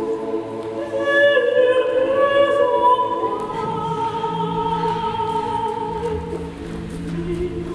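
Vocal music with voices holding long, sustained notes that move slowly from pitch to pitch.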